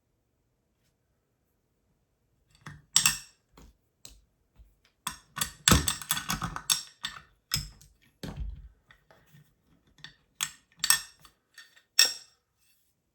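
Small metal hard-drive parts and tools clicking and clinking against each other as the drive is pried apart, in irregular taps that start a couple of seconds in and crowd together around the middle.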